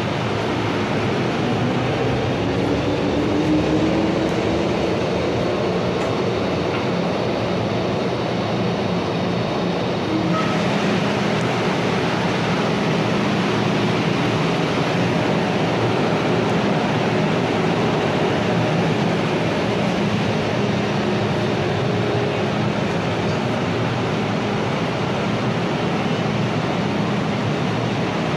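Cabin noise of an MTR M-Train pulling away and running. A traction motor whine rises in pitch over the first few seconds, and a steady running rumble follows.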